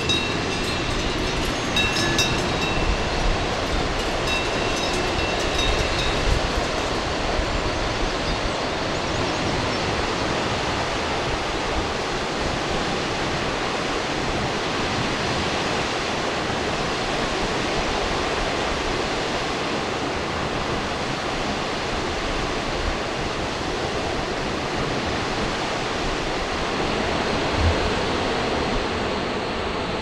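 A steady, even rushing noise with no rhythm, with a few clear ringing bell-like tones over it in the first six seconds.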